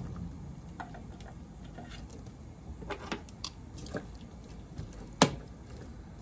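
Cooking tongs clicking and knocking against a pot while stirring asparagus in hot water, with a sharper knock about five seconds in. Water splashes and bubbles faintly underneath.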